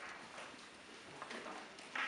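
A few light knocks and clicks, the loudest near the end: wooden chess pieces set down on boards and chess clock buttons pressed, over faint room noise.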